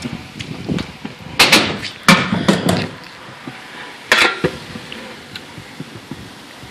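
Stunt scooter wheels rolling over concrete, with several sharp clacks and clanks as the scooter hits the metal grind rail and lands: a cluster about one and a half to three seconds in and one more about four seconds in.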